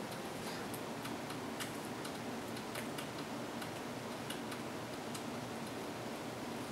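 Quiet room tone with faint small clicks at uneven intervals, a few each second.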